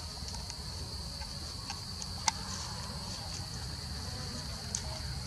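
Steady high-pitched drone of insects, with scattered sharp crackles of dry leaf litter as baby macaques move about on it. The loudest is a single snap about two seconds in.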